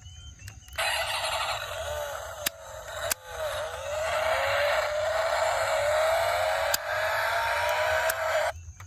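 Car engine revving sound, a whine rising slowly in pitch over a rushing noise, that starts abruptly and cuts off abruptly near the end.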